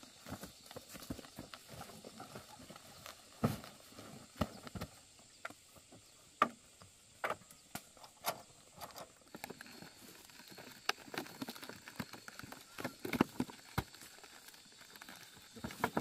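Irregular knocks, taps and rustles of sacks of corn being lifted onto a motorbike and tied down with a rubber strap.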